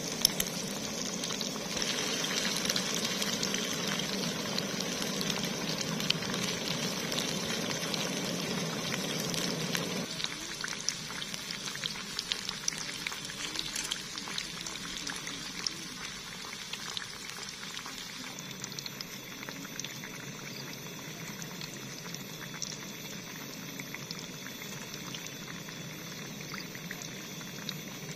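Battered pieces deep-frying in hot oil in a small aluminium camping pan: a dense sizzle full of tiny pops and crackles, louder for the first ten seconds or so, then settling a little quieter.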